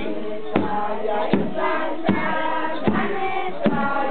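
A group singing a chant together, with a steady beat struck about every three-quarters of a second; the singing grows stronger about a second and a half in.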